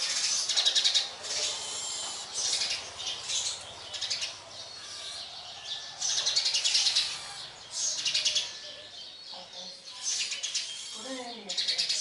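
House sparrows chirping in bursts of rapid, high chirps, each burst about a second long and coming every second or two, with short gaps between.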